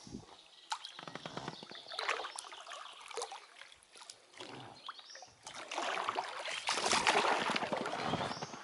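Shallow river water sloshing and splashing around an inflatable boat and its paddle, with scattered small knocks and clicks; the splashing gets busier and louder a little past the middle.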